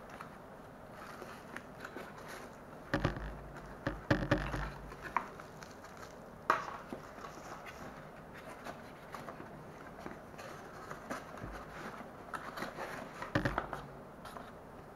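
Cardboard box and paper inserts being handled and unpacked: rustling and scraping, with several sharp knocks, the loudest about three, four, six and a half and thirteen seconds in.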